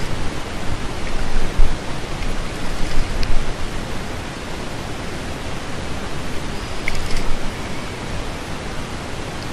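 Steady rushing wind noise on an action-camera microphone at sea, with a few heavy low thumps of buffeting in the first few seconds and some faint clicks.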